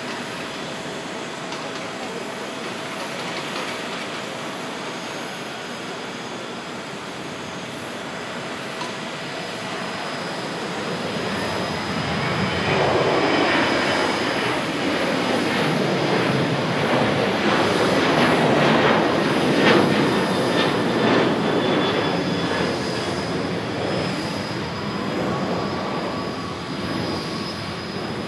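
Boeing 737-800's CFM56-7B turbofan engines spooling up to go-around thrust after a hard bounce on landing. The engine noise swells about ten to thirteen seconds in as the jet climbs out close by, stays loud for several seconds, then fades as it climbs away.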